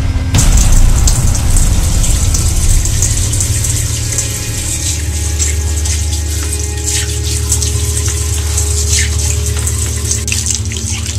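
Bathroom sink faucet running into the basin, with irregular splashing as someone washes at the sink.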